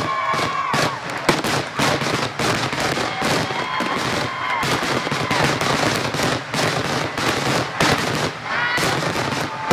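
Fireworks display: a rapid, continuous run of bangs and crackling, with a few held whistling tones that drop in pitch as they end.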